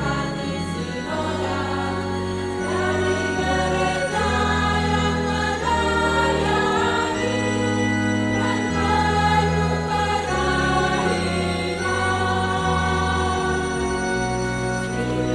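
Church choir singing in parts, with keyboard accompaniment holding low bass notes that change every second or two.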